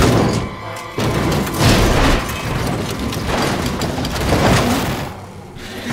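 Animated race car crash sound effects: a cartoon stock car tumbling end over end, with a series of heavy booms and impacts and scattering dirt, over dramatic film music.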